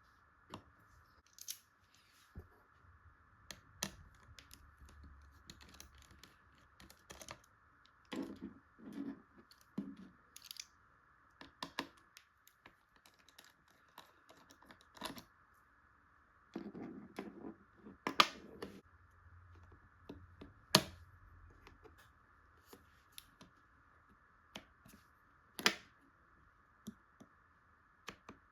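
Scattered small clicks, taps and short scrapes of tools and small parts being handled during a laptop repair, with a few sharper clicks standing out, over a faint steady hiss.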